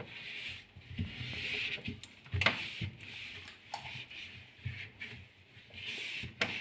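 A cotton cloth rubbing over a fridge's inside surfaces in repeated wiping strokes, with a couple of sharp knocks, one about halfway through and one near the end.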